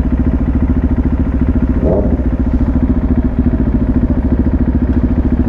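Motorcycle engine running at a steady speed, its exhaust pulsing evenly, with a brief rising sound about two seconds in.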